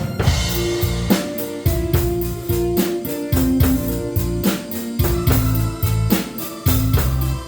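Instrumental band music: a drum kit keeping a steady beat, opening with a cymbal crash, under keyboard and a guitar-toned melody line.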